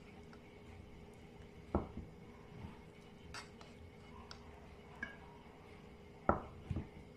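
Spatula knocking and scraping against a metal pot and a ceramic plate while serving sausage in sauce: a few soft knocks about two seconds in and again, loudest, near the end, with small clicks between, over a faint steady hum.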